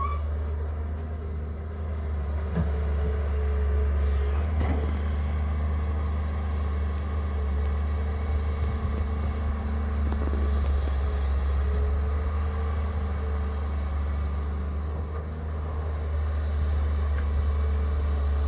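Caterpillar hydraulic excavator's diesel engine running steadily as the machine digs and swings, with a faint whine that comes and goes. There are a couple of knocks, about five and ten seconds in.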